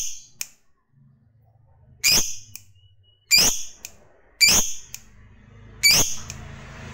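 Masked lovebird giving loud, shrill, short calls, each a quick downward-sweeping shriek, about five of them spaced roughly a second apart.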